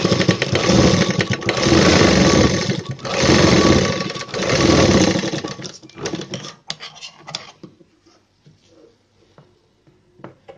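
Sewing machine stitching through folded blouse fabric in four short runs with brief stops, then stopping about five seconds in. A few light clicks follow as the threads are snipped with scissors.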